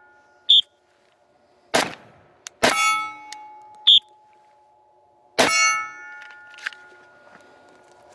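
Glock 10mm pistol fire on steel targets: three sharp clangs of hits on steel, each ringing on with a metallic tone, with two short high pings between them.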